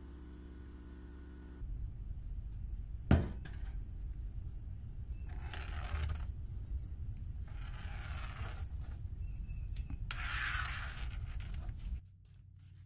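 Small metal parts being handled on a workbench: a sharp knock about three seconds in, then three short scraping rubs about two seconds apart. A steady hum runs for the first second and a half before cutting off.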